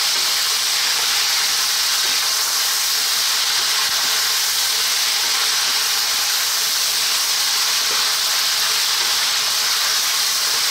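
Pork ribs sizzling steadily as they stir-fry in oil in a deep pan, being turned with a spatula.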